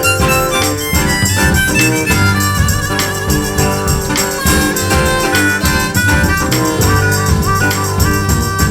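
Blues band instrumental break: a harmonica plays the lead with held, wavering notes over acoustic guitar, double bass and drums keeping a steady beat.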